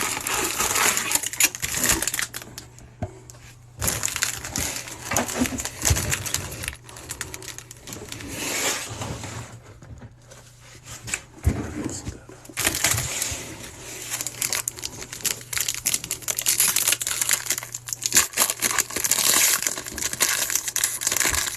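Foil trading-card pack wrappers being torn open and crinkled, with cards and packaging rustling in irregular spells broken by short pauses.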